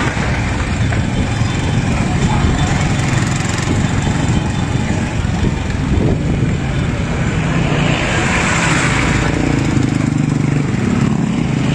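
Motorcycle engines running steadily close by.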